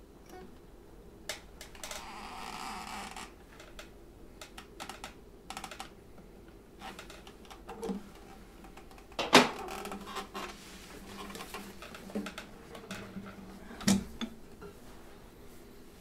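Irregular clicks, taps and knocks of things being handled at a desk, with a short rustle about two seconds in and two louder knocks, one about nine seconds in and one near the end.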